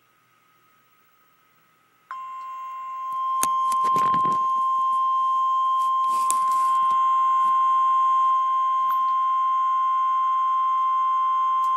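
NOAA Weather Radio 1050 Hz warning alarm tone: one long, steady, high beep that starts about two seconds in and gets louder about a second later. It is the attention signal that comes before a National Weather Service alert message. A few knocks and a low rumble sound over it around four and six seconds in.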